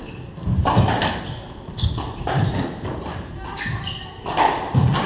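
Squash rally: the ball is struck by racquets and hits the court walls with hollow thuds, about one every half second to a second. Short shoe squeaks on the wooden court floor come in between.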